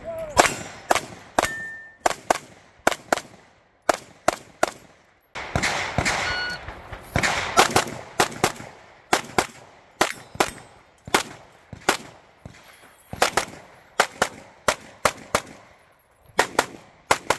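A fast string of pistol shots during a USPSA stage run, mostly fired in quick pairs, with a few short pauses between bursts.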